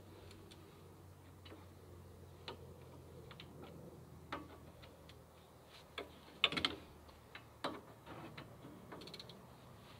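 Ratchet wrench clicking on the brake caliper bolts: scattered sharp metallic clicks, with a short run of rapid clicks about six and a half seconds in.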